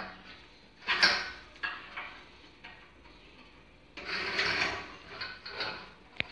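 Metal clunks and scraping as the steel body of a portable wood stove is handled and seated onto its metal legs: a knock about a second in, a longer scraping rattle around four seconds in, and a sharp click just before the end.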